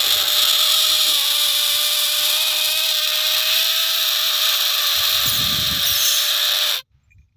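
Air squealing out of a balloon's stretched neck as it deflates: one long, loud, steady high squeal that cuts off suddenly near the end.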